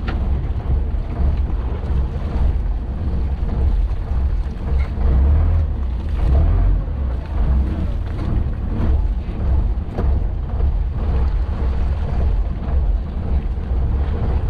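Wind buffeting the microphone aboard a fishing boat at sea: a strong low rumble that swells and dips, over a steady wash of boat and water noise.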